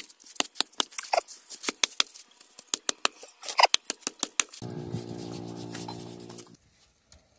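A machete blade chopping a singed pig's trotter on a wooden chopping block: a quick series of sharp knocks, a few a second, as it cuts through bone and meat. About four and a half seconds in, a steady low hum takes over for some two seconds.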